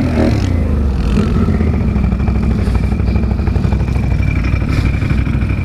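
Can-Am ATV engine working under load in deep mud: the revs drop at the start, then it settles into a steady low chugging. A steady high whine joins about a second and a half in.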